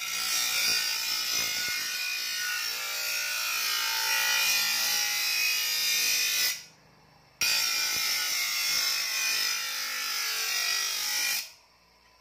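Steel shovel blade ground against the wheel of a small electric bench grinder to sharpen its edge: a loud grinding in two passes, about six seconds and then four seconds, with a short break between, stopping suddenly near the end.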